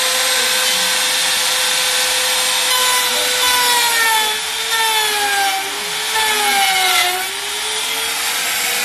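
Handheld electric trim router running at high speed, its bit cutting along the edge of a particleboard panel. The motor whine sags and wavers in pitch under the load through the middle, and the cutting noise eases about seven seconds in as the router runs on.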